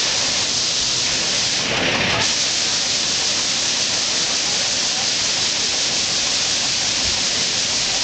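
Waterfall: water pouring in thin sheets down a rock face with a steady splashing hiss, briefly a little louder about two seconds in.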